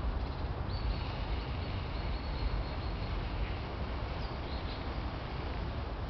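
Stream water running steadily, with a few faint, high bird chirps over it.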